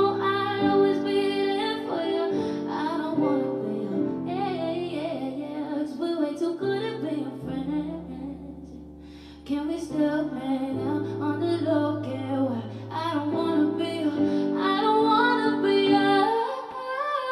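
Live R&B song performance: a woman's voice singing wordless runs over sustained keyboard chords and bass. The music thins out and dips briefly just past the middle, then comes back in.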